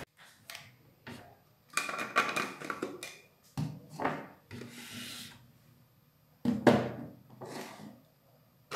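A string of short, irregular rubbing and scraping sounds with quiet gaps between them, like objects being handled and slid over a surface.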